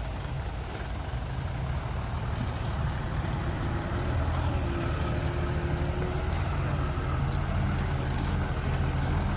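Heavy diesel engine running steadily with a low drone, growing somewhat louder about three to four seconds in.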